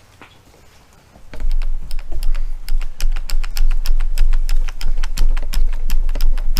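Windscreen being buffed with cerium oxide polishing paste: after a quiet second, a busy run of sharp clicks and taps at several a second over a low rumble as the pad works the plastic screen.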